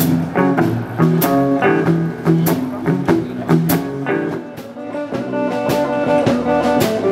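Small band music: electric guitar over upright double bass and drum kit, playing a lively tune with a steady beat.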